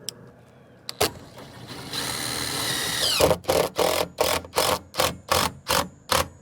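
Cordless drill running: a steady whir that bogs down, then a run of short trigger bursts, about three a second, as it drives a screw.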